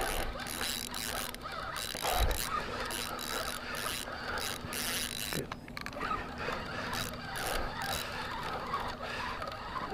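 Fishing reel working against a hooked fish: a continuous fast ratcheting of the reel's gears and clicker as the line is brought in.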